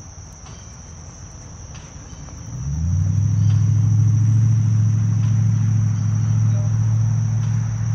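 Crickets chirping in a steady high buzz. About two and a half seconds in, a low, steady engine hum comes in quickly and holds, becoming the loudest sound.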